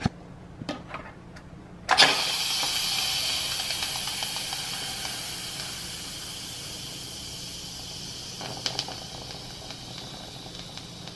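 Instant Pot electric pressure cooker venting steam through its release valve on a quick release: a hiss bursts out suddenly about two seconds in and slowly fades as the leftover pressure drains.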